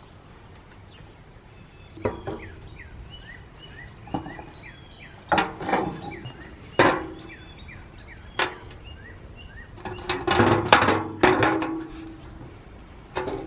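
Steel pipe fittings, solenoid valves and a pressure gauge knocking and clunking against a steel table as they are handled and fitted together: a string of sharp metal knocks, busiest about ten seconds in. Birds chirp faintly in the background.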